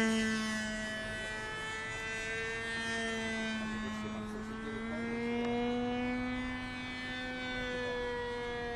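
RC model airplane's motor droning as it flies overhead, its pitch sinking over the first few seconds and rising again about halfway through.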